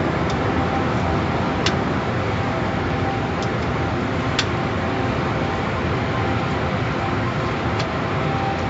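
Automatic car wash heard from inside the car: a steady rushing of water and air over the car, with a faint machine hum and a couple of light ticks.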